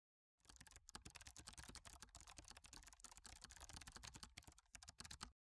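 Fast typing on a computer keyboard, a dense run of quiet key clicks that starts about half a second in and stops abruptly near the end.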